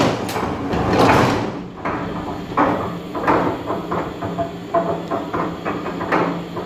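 Mechanical flywheel-driven guillotine shear running: a steady hum from the drive and flywheel, with a heavy clanking stroke about a second in and lighter knocks repeating roughly every two-thirds of a second.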